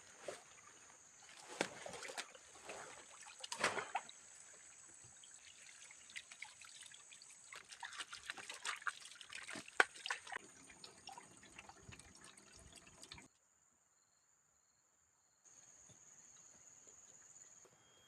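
Water trickling and splashing in irregular spurts over a steady high-pitched hiss. The sound drops out to near silence for about two seconds some two-thirds of the way through.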